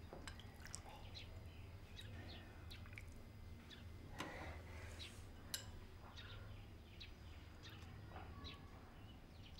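Faint, scattered clinks and taps of a spoon against porcelain bowls and a soup pot as chicken soup is ladled out and served, over a low room hum.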